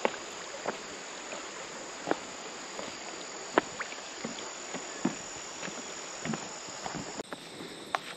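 Steady high-pitched chorus of crickets, with scattered crunching, knocking footsteps of a hiker on a dirt trail. The insect sound changes abruptly near the end.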